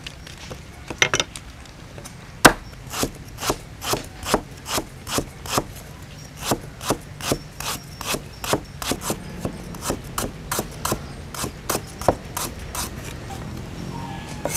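Cleaver slicing lemongrass stalks into thin rings on a chopping board: a steady run of sharp knocks, about two or three a second, starting a couple of seconds in and stopping near the end.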